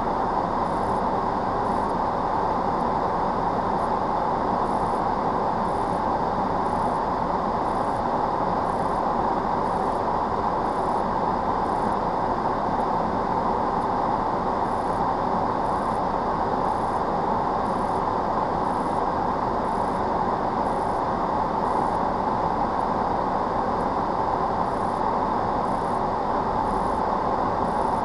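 Steady cabin noise of a stopped vehicle with its engine running in the rain, with a faint high tick repeating a little over once a second.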